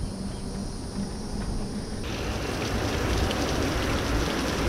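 A low rumble for about two seconds, then heavy rain, a steady downpour pouring onto a yard and porch, that comes in abruptly.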